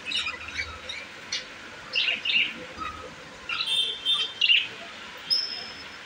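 A group of budgerigars chattering in their cage: irregular short chirps, a longer warble a little past the middle, and a brief high whistle near the end.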